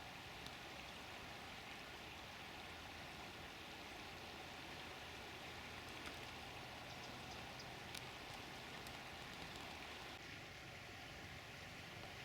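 The steady rush of the River Swale in flood, with a few faint ticks.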